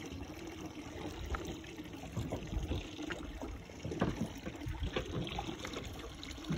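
Water lapping and trickling against the side of a small boat, with small irregular splashes.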